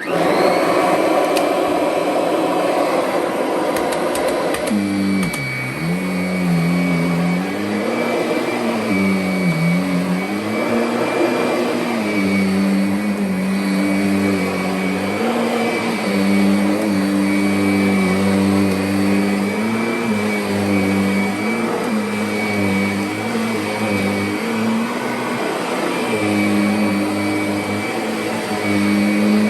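Kirby Sentria upright vacuum cleaner switched on, its motor whine rising as it spins up, then running steadily. From about five seconds in, its pitch repeatedly dips and recovers as it is worked over carpet.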